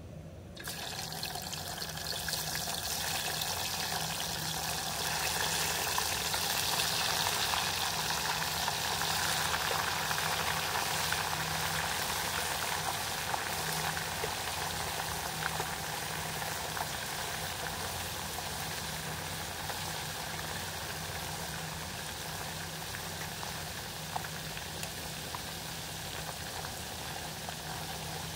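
Sand whiting deep-frying in hot oil: a sizzle that starts suddenly about half a second in, swells over the first several seconds, then settles to a steady hiss with small crackles.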